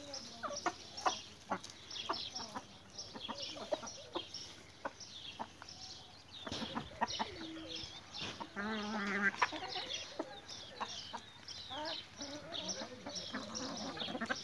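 Chickens clucking and calling as they forage, with many short high chirps throughout and one longer, lower drawn-out call about nine seconds in.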